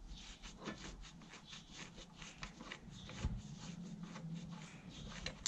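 Irregular small clicks, taps and scrapes of hand work on a planter row unit's gauge wheel, as it is unbolted and handled, over a faint steady low hum.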